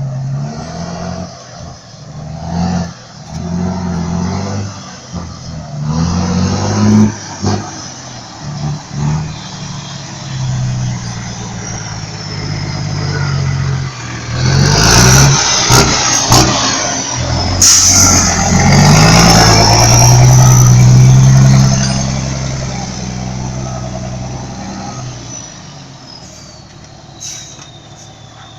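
Volkswagen 31.320 truck's diesel engine revving hard through a straight-through exhaust (a 'diretão'), in repeated swells with the longest and loudest in the middle. Sharp bursts of air hiss come during the loudest swell, and a high whistle falls away near the end.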